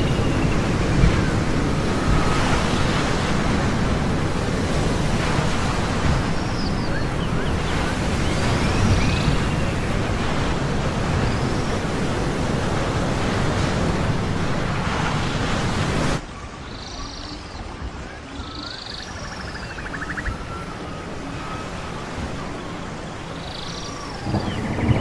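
Ambient seascape: a steady rushing of surf and wind, with short high chirping calls recurring over it. About sixteen seconds in, the rush drops suddenly to a quieter layer.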